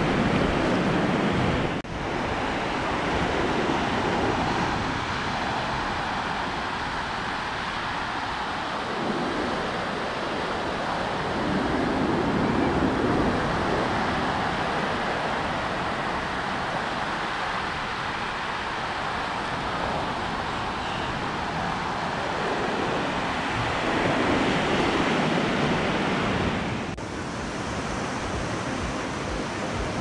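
Ocean surf washing up a flat sandy beach: a steady rush that swells and eases as each wave comes in, with wind on the microphone.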